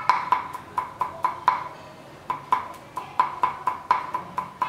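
Cleaver mincing garlic on a wooden chopping board: quick, even knocks of the blade on the wood, about four a second, with a brief pause about two seconds in.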